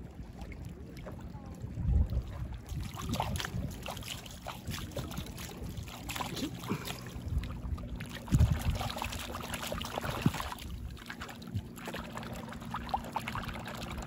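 Wind buffeting the microphone in low gusts, strongest about two seconds in and just past the middle, over small clicks and scrapes of hands and a tool working small mussels loose from a rock in shallow seawater.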